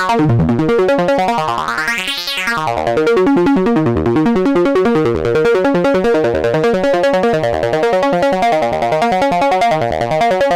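Moog Sub 37 synthesizer playing a note pattern through a bandpass filter, its level chopped into fast, even pulses by the Intellijel Quad VCA. A bright filter sweep rises and falls about two seconds in.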